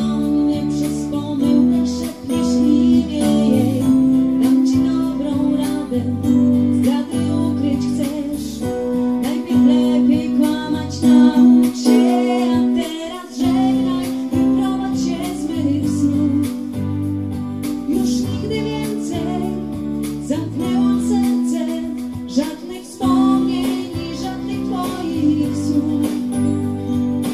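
Pop band music with guitar and held chord tones, with a female voice singing at times.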